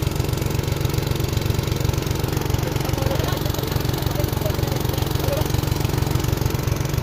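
Diesel engine of an Eicher tractor running steadily at constant speed, driving the pump that draws the pond water out through the hose.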